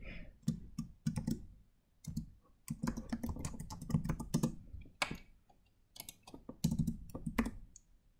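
Typing on a computer keyboard: a run of key presses in irregular bursts, with a brief pause about two seconds in.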